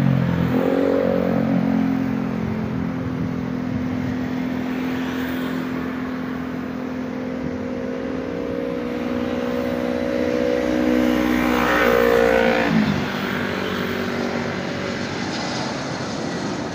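A motor vehicle's engine passing close by: a steady engine tone that drops in pitch as it goes past about thirteen seconds in, with another pass-by dropping in pitch right at the start.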